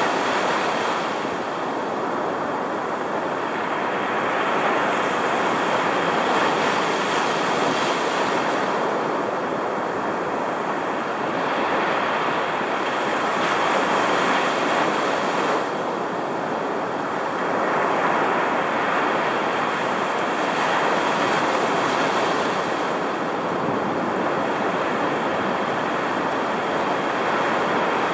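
Rough, storm-driven surf breaking and washing up the sand, recorded right at the water's edge: a continuous roaring rush whose hiss swells about every seven seconds as each wave breaks.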